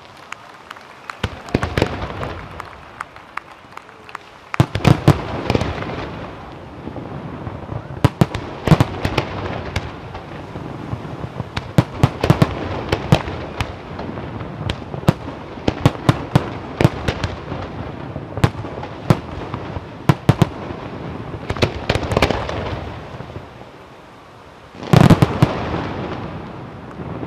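Aerial firework shells of a professional display bursting in quick succession, with many sharp bangs. There are short lulls near the start and again just before a loud salvo of bursts near the end.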